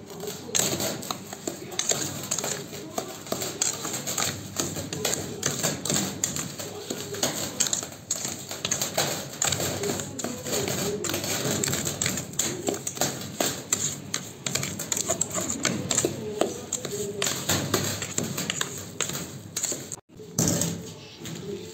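A metal spoon scraping and clicking against a steel bowl as it stirs a crumbly red brick mix, in a rapid run of clicks and scrapes. The sound cuts out briefly near the end.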